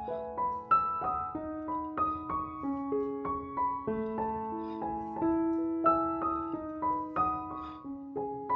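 Background piano music: a gentle melody of struck notes over a slower bass line.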